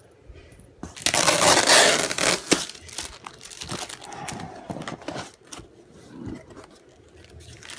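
Packaging crinkling and tearing as it is handled and opened by hand. The loudest rush of crinkling comes about a second in and lasts about a second and a half, followed by lighter rustling and small clicks.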